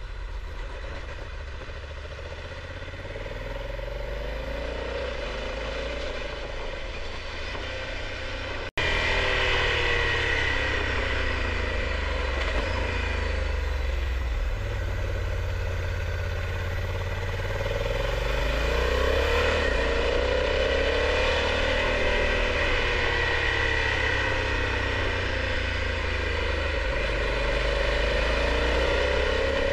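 Motorcycle engine heard from on board, its revs rising and falling, over a low wind rumble. An abrupt cut about nine seconds in, after which it is louder.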